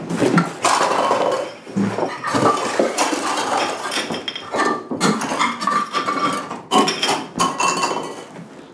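Cups and odds and ends clattering and clinking as they are swept off a table by hand, a quick run of knocks and clinks that thins out near the end.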